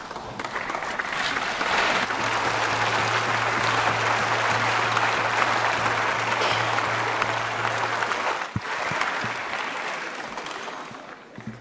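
Applause from a large crowd of members in a debating chamber, swelling over the first two seconds, holding steady, then thinning and dying away near the end, with a steady low hum beneath it for much of the time.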